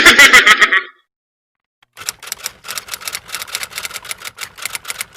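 Typewriter keys clattering in a quick, uneven run of clicks, starting about two seconds in. It follows a loud, brief burst of clatter in the first second.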